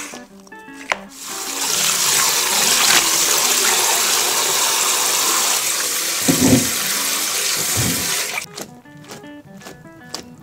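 Tap water running into a kitchen sink for about seven seconds, with a couple of low thuds under the stream near the end, then stopping suddenly; a few light clicks follow.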